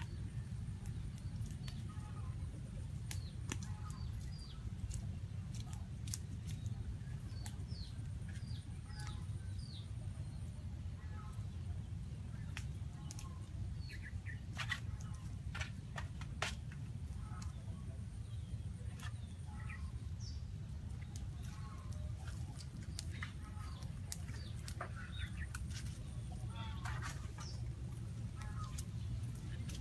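Birds chirping and calling on and off over a steady low rumble, with scattered sharp clicks and crackles.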